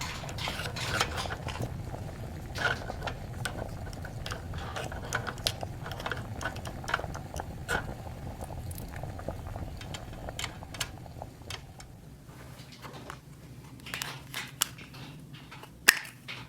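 Small hard plastic toy kitchen pieces being handled, with irregular clicks and taps that come more sparsely in the second half, over a low steady hum.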